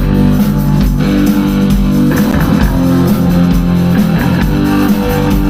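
A live rock band playing: distorted electric guitars holding chords over bass guitar and a drum kit, with no singing.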